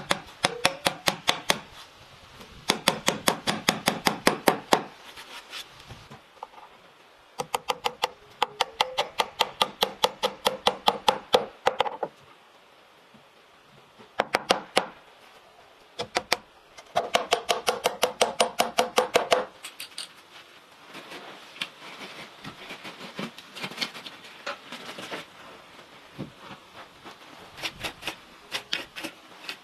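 Rapid repeated knocking or tapping, about eight to ten strikes a second, in bursts of two to three seconds with short pauses between, fainter and more scattered in the last third.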